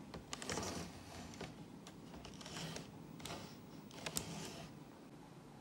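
Plastic clicks and short scraping rustles as a Telefunken C 1400 VHS-C camcorder is handled and its viewfinder swung down. A few sharp clicks stand out, the loudest a little after four seconds in.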